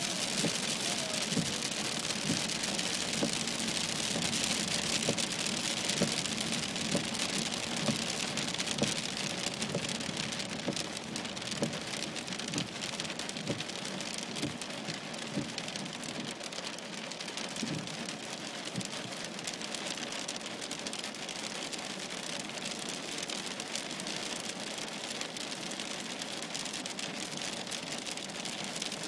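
Heavy rain and hail pelting the car's roof and windscreen, heard from inside the car as a dense hiss dotted with sharp ticks of stones striking. It eases a little about halfway through.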